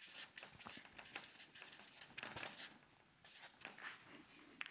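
Felt-tip marker writing on flipchart paper: faint, short scratchy strokes coming in quick irregular runs.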